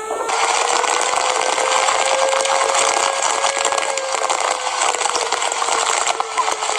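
Power saw at full speed cutting through wood: a steady high whine over dense rasping noise, the pitch sagging slightly under load in the second half.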